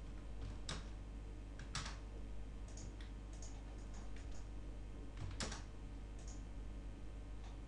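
Computer mouse and keyboard clicks as CAD objects are selected and moved: a few sharp clicks, the strongest at under a second, near two seconds and about five and a half seconds in, with fainter ticks between, over a steady low electrical hum.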